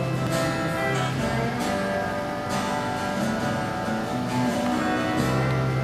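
Music: an instrumental passage of a song with strummed acoustic guitar between sung lines.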